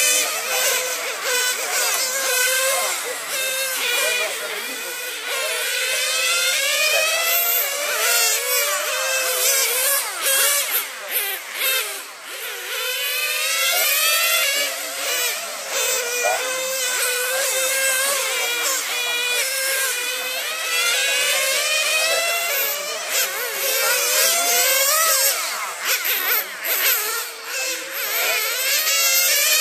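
Several radio-controlled model racing cars lapping together, their high-pitched motors buzzing and sweeping up and down in pitch as they speed up and slow through the corners, one over another.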